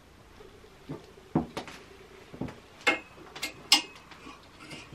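Clothes hangers clicking and scraping against a metal clothes rail as garments are hung and taken off: a scattered series of sharp clicks and knocks, the loudest near the end.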